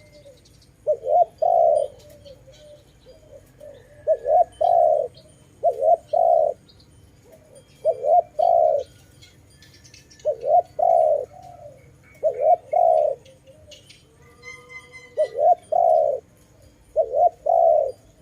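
Spotted dove cooing: a short note run into a longer one, repeated eight times, about every two seconds. Faint chirps from other small birds are heard between the coos.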